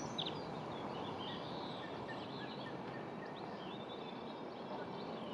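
Open-air ambience: a steady hiss of background noise with small birds calling faintly here and there.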